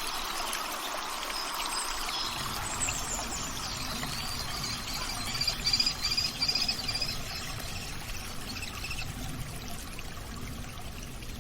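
Water trickling and running steadily, with a songbird singing a long series of quick repeated notes over it in the middle of the stretch.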